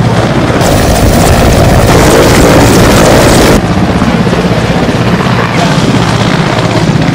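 Mi-17 twin-turbine helicopter running close by, its rotor giving a fast, steady chop, with a louder rush of noise from about half a second in to about three and a half seconds.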